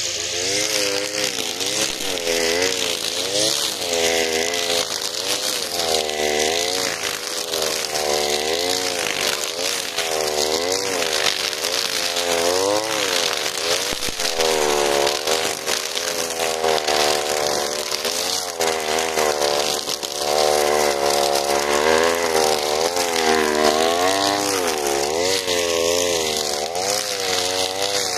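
Alpina Star 55DP two-stroke gas trimmer running at high revs while cutting dense weeds. Its engine pitch rises and falls every second or two as the head sweeps through the growth and loads up and frees again.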